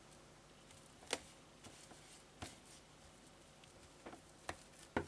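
A few faint, scattered clicks and taps of fingers on tarot cards as a card is picked from a fanned-out deck on the table, over quiet room tone.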